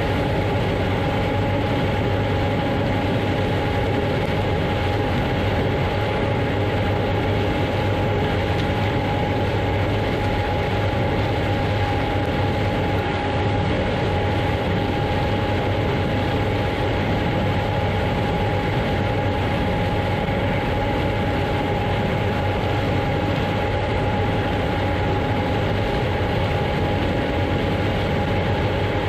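Heavy corn-harvest machinery running steadily: a constant deep engine drone with a thin, unchanging whine above it.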